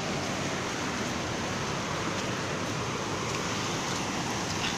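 The Torsa river in flood, its fast, high, muddy water rushing past the bank as a steady, even noise.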